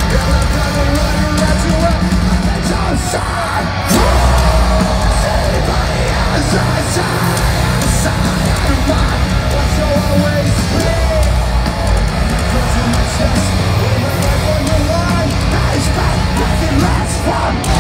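Live heavy rock band playing loud, with drums, guitars and yelled vocals, heard through the crowd. The music gets louder about 4 s in.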